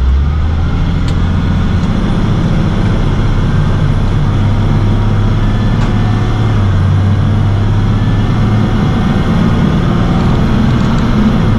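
Box truck's engine and road noise heard from inside the cab as the truck pulls away and gets under way. The engine note steps up just after the start, then runs on steadily.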